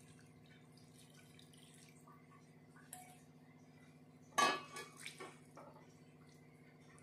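Water poured from a glass into a pan of potato-and-aubergine curry, then a spatula stirring it, knocking and scraping on the pan, with one louder scrape about four and a half seconds in. A low steady hum runs underneath.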